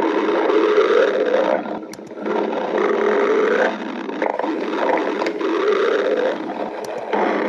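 Stomach growling: long gurgling rumbles, each swelling for a second or two, with brief dips between them.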